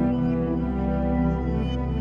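Background music: slow, held new-age style chords over a steady low drone.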